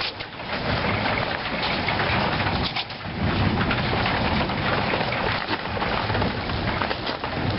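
Hail coming down hard, a dense clatter of hailstones striking surfaces, with a low rumble underneath from about three seconds in.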